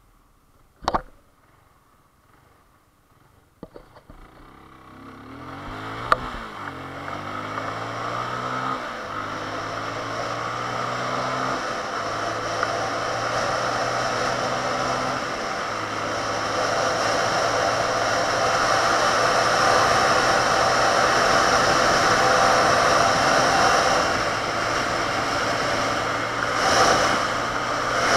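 Benelli 150S motorcycle engine pulling away, its revs climbing and dropping through several gear changes, then settling into a steady cruise under a growing rush of wind. A few clicks come in the quiet first seconds.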